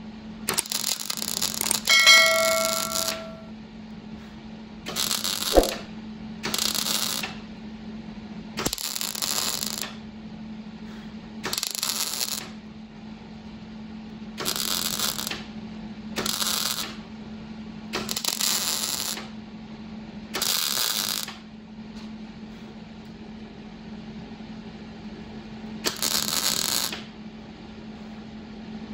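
About ten short bursts of hiss, each roughly a second long, every one to three seconds. A metal tool clinks and rings briefly about two seconds in. A steady low hum runs underneath.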